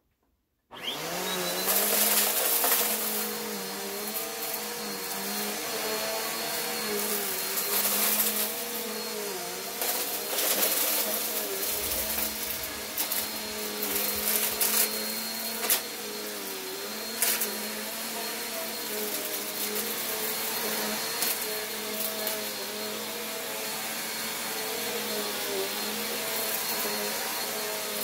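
Bagless upright vacuum cleaner switched on about a second in: its motor spins up with a short rising whine, then runs steadily as it is pushed over carpet, with scattered clicks and rattles.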